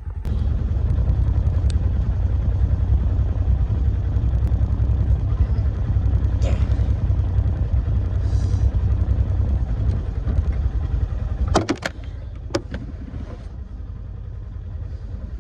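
Side-by-side utility vehicle's engine running steadily with a low rumble, dropping away about twelve seconds in, where a few sharp clicks or knocks follow.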